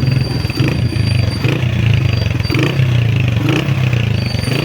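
Honda CG125's single-cylinder four-stroke engine running steadily while the motorcycle is ridden.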